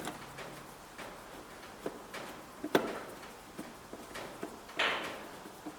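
Small clicks and taps of metal door-latch hardware being handled and fitted into the door, with one sharp click about three seconds in and a short scraping rustle near the end.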